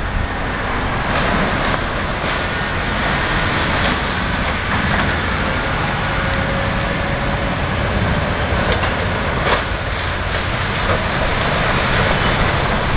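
Heavy demolition machine's engine running steadily while it tears at the house, with a few sharp knocks of breaking debris in the second half.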